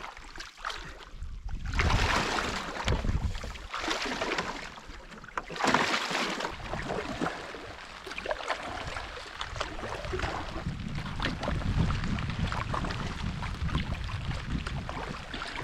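Canoe being paddled through water, with gusts of wind rushing over the microphone: two strong swells, then a steadier low rumble with small knocks and splashes.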